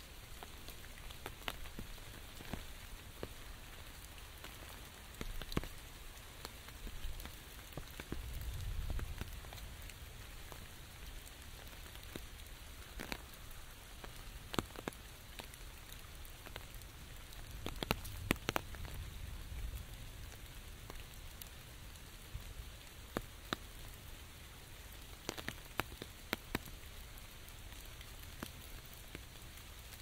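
Steady rain falling on an umbrella overhead and on the leaves and pavement around, a constant hiss dotted with irregular sharp taps of larger drops striking the umbrella. Two brief low rumbles come through, about nine and eighteen seconds in.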